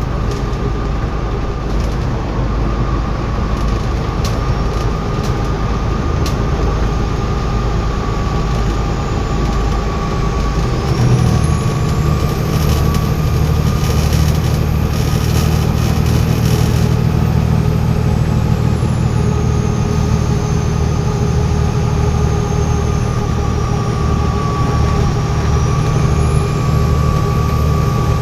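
Volvo B7TL double-decker bus's six-cylinder turbodiesel running under way, with a high turbocharger whistle. About eleven seconds in the engine pulls harder and the whistle climbs, then it glides down and up again as the revs change.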